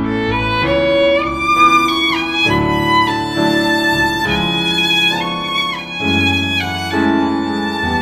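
Background music: a violin playing a melody with a few notes sliding downward, over sustained low chords.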